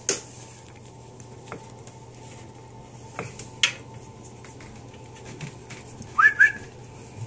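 Air conditioning running with a steady low hum, with a few scattered light clicks and taps and two short high rising squeaks about six seconds in.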